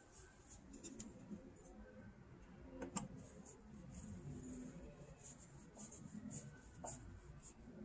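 Faint clicks and scraping of a wire terminal being worked onto the back of a ballast resistor, with a sharper click about three seconds in.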